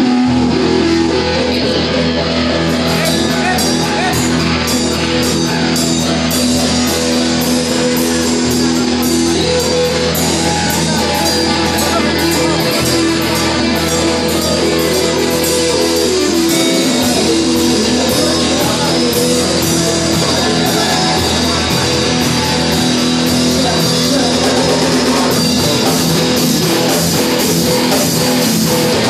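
Rock band playing: held electric guitar chords, with drums and cymbals coming in about two seconds in and keeping a steady beat.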